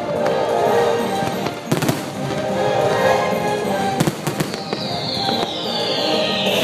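Fireworks going off over loud show music: sharp bangs in clusters about two seconds in and again about four seconds in, and a high tone gliding slowly downward through the last couple of seconds.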